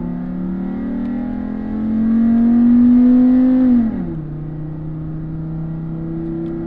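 Chevrolet Colorado pickup's engine at full throttle, heard from inside the cab, rising in pitch as it revs out, then dropping suddenly about four seconds in as the transmission upshifts. After the shift it runs on at a lower, steady pitch. This is a baseline 0-60 run with the factory manifold catalyst still in place.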